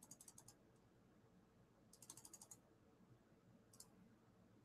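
Near silence with faint computer keyboard clicks in short runs: a few at the start, a quick run of about six about two seconds in, and a single click near the end.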